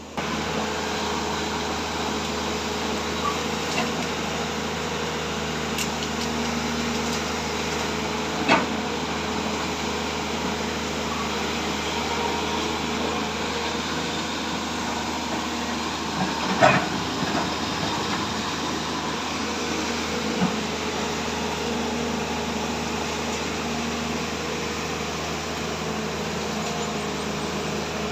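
Sany excavator running steadily, its engine giving a constant mechanical hum with a few sharp knocks; the loudest knock comes a little past the middle.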